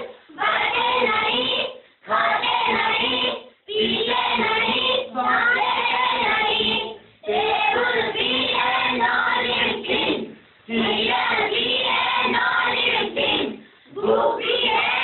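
A group of schoolchildren singing a poem in unison, line by line, with short breaks between the lines.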